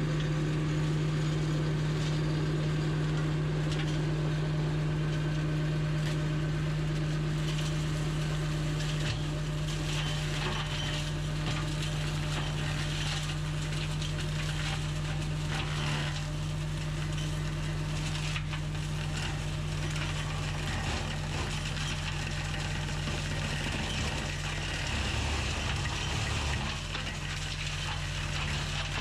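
Lamborghini tractor engine running steadily under load while its PTO-driven flail mower, with swinging hammers, chops through grass, brambles and small branches, with continual crackling and snapping from the material being shredded. The sound fades slightly as the tractor moves away.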